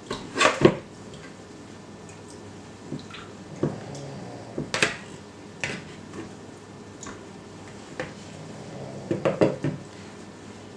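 Metal pastry blender knocking and scraping against a plastic mixing bowl while chopping canned oranges: irregular clicks and clatters about once a second, with a quick cluster of knocks near the end.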